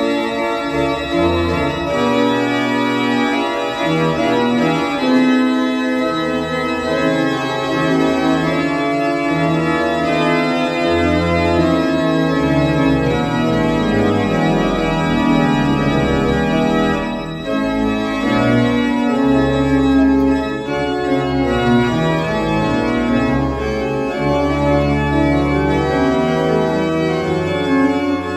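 Baroque-type pipe organ, rebuilt from a 1910 Rieger instrument, played in a slow improvisation: full sustained chords with held bass notes underneath. There is a short break in the sound about two-thirds of the way through.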